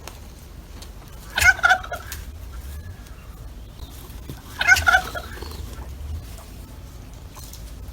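Male turkey gobbling twice, a quick rattling warble each time, about three seconds apart, over a steady low outdoor rumble.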